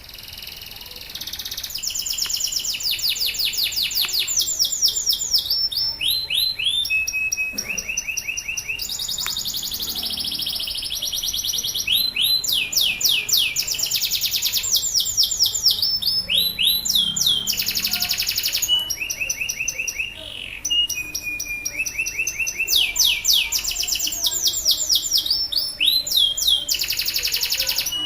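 Male canary singing continuously in long rapid trills. Each phrase is a fast run of repeated high notes, and the bird switches to a new pitch and pattern every second or two, with a brief break about twenty seconds in.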